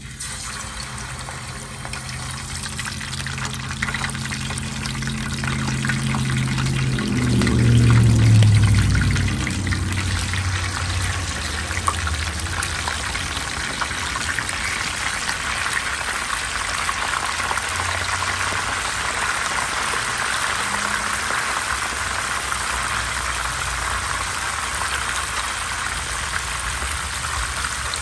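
Red snapper pieces sizzling in hot cooking oil in a pan, the sizzle growing as more pieces go in. A brief low rumble about eight seconds in is the loudest moment.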